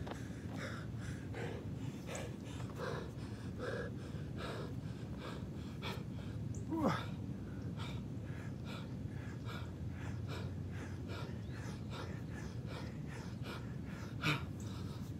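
A man's heavy, quick breathing and gasping as he does push-ups, hard-pressed right after a run. About seven seconds in comes a louder sound that slides down in pitch, and near the end a sharp louder breath.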